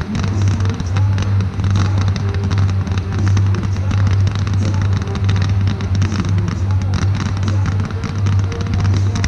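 Music for a musical fireworks display, with frequent firework bangs and crackles sounding over it.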